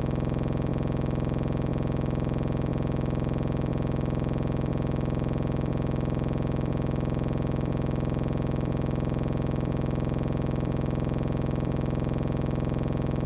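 Outro music: a steady, unchanging synthesizer chord, with a faint soft beat about once a second.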